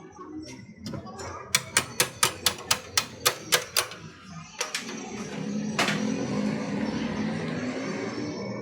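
Workshop sounds: a quick run of about ten sharp clicks, roughly four a second, then a steady rushing noise with a low hum from about halfway through.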